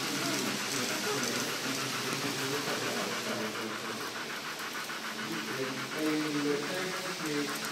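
Model railway train running on a layout, with a fast, even ticking from about three seconds in, over a steady background of people's voices.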